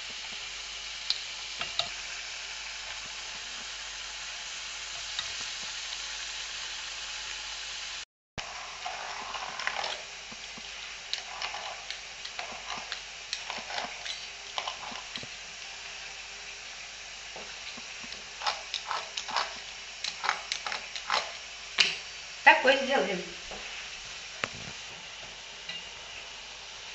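Khvorost dough pieces deep-frying in hot vegetable oil in a pot, a steady sizzle. After a short break the sizzling goes on with scattered sharp clicks. Shortly before the end there is a brief downward-sliding tone with a cluster of loud clicks.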